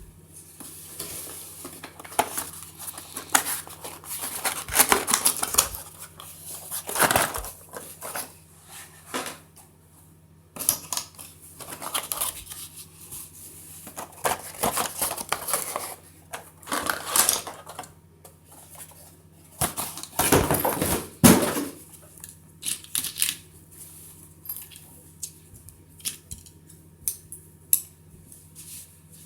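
Irregular rustling, clicking and clattering as plastic packaging and the trimmer's plastic parts are handled and unpacked, coming in uneven bursts with short pauses. A faint steady low hum runs underneath.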